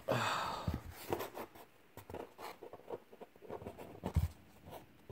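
Handling noise as a cardboard box of trading cards is brought out: a rustling swish at the start, then scattered light knocks and taps, and a thump about four seconds in.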